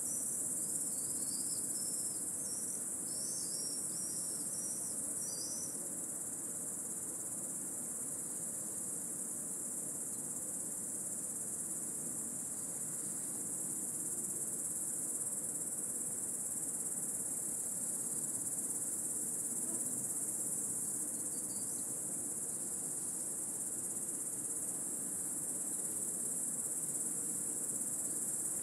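Dense chorus of cicadas: a loud, steady high-pitched shrill that never lets up. A few brief high warbling chirps sound over it in the first six seconds.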